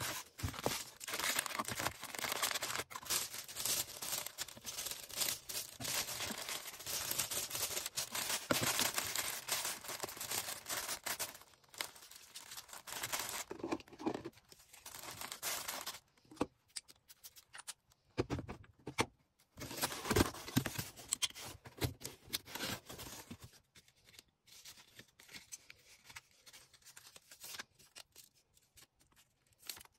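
Order-packing sounds: plastic packaging crinkling and tearing. The sound is a dense, continuous rustle for about the first ten seconds, then comes in scattered short bursts with quiet gaps between them.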